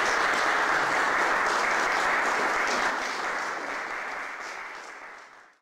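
Audience applauding, steady at first, then dying away over the last couple of seconds and cut off abruptly.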